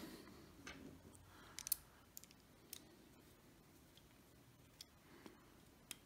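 Faint, scattered clicks and ticks of small metal bolt action pen parts being handled and turned in the fingers, about half a dozen, the sharpest just before two seconds in.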